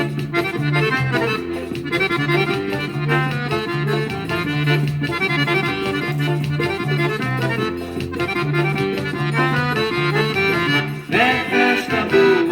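Accordion playing the instrumental break of a São João festival song, a busy melody over a bass line that pulses about once a second, with no singing. The melody briefly drops out about eleven seconds in before a new phrase starts.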